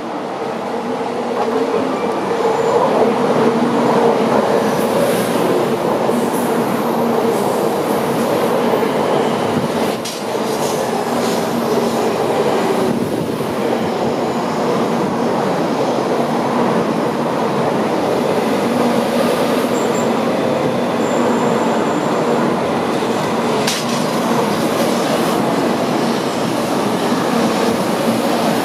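A Tokaido Shinkansen train pulls into the platform and rolls past close by with a steady rumble and hum. It grows louder over the first few seconds as it nears, and there is a short high squeal about two-thirds of the way through.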